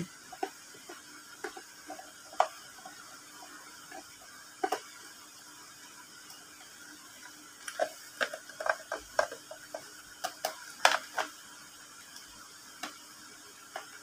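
Clear plastic parts of a hang-on-back aquarium filter clicking and knocking as they are handled and snapped together. There are scattered sharp clicks, with a dense run of them from about eight to eleven seconds in.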